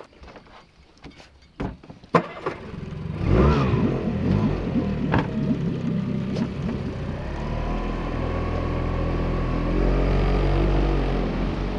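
Small boat's outboard motor starting about three seconds in, with a brief rise in pitch, then running steadily and growing louder from about halfway as the boat gets underway. A few sharp knocks and clicks come before it starts.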